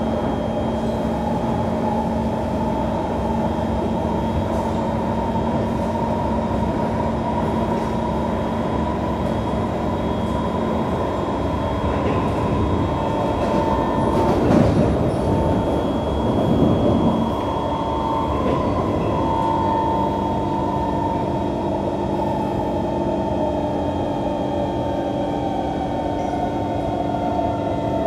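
Inside a Kawasaki C151 metro train running at speed: steady traction-motor whine over wheel-on-rail rumble. It gets louder and rattlier for about three seconds around halfway through.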